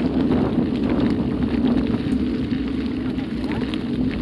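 Mountain bike tyres rolling over a gravel track: a steady rumble with scattered small ticks and rattles, with wind on the microphone.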